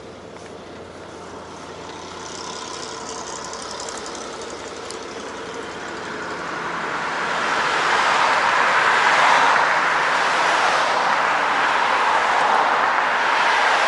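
A large vehicle approaching: a steady rushing noise with faint steady tones, growing louder over about eight seconds and then staying loud.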